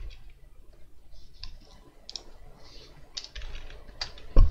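Computer keyboard keys clicking as a dimension value is typed in, with a single much louder thump near the end.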